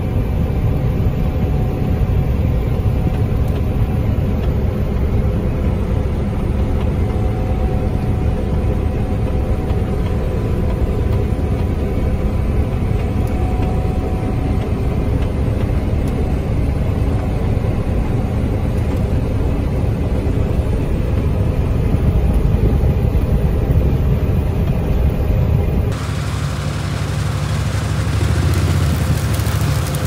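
Steady drone of a John Deere 9670 combine heard from inside its cab while harvesting wheat: engine, header and threshing running together. About 26 seconds in it cuts to a combine working in the wheat heard from the field outside, a lower steady hum with more hiss.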